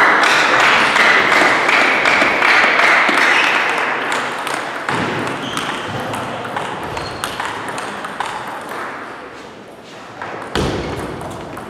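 Table tennis ball clicking as it bounces on the table and bat between points, over a loud noisy din in a reverberant hall that fades over the first several seconds. A dull thump comes near the end.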